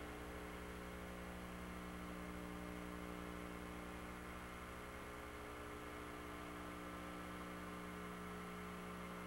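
Steady electrical mains hum, a buzz of several fixed tones, with a faint hiss beneath it.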